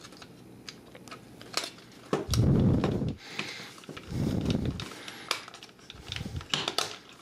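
Plastic parts of a Transformers Weaponizer Bumblebee figure clicking and snapping as its car doors are folded in and tabbed shut by hand, with two louder low rumbles about two and four seconds in.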